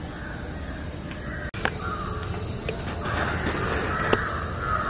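Steady high-pitched chirring of insects such as crickets, with a sudden momentary cut in the sound about a second and a half in and a few light clicks, the sharpest near the end.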